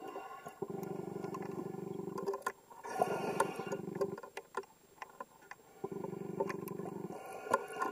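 Underwater sounds of a scuba diver's gear: a low, steady hum that comes and goes three times, with scattered clicks and crackles in the pauses between.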